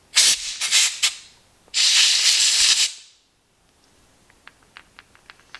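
Compressed-air blow gun blasting air through the small drain passage of a coffee carafe lid: a few short hissing bursts, then one longer blast of about a second that fades out. The air is clearing caked coffee powder from the clogged passage.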